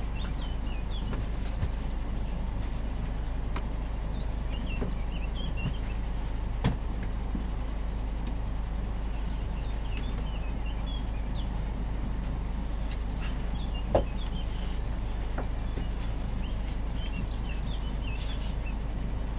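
Steady low rumble of a heavy motorhome's engine, with birds chirping over it and two sharp knocks, about a third of the way in and about three-quarters through, the second louder.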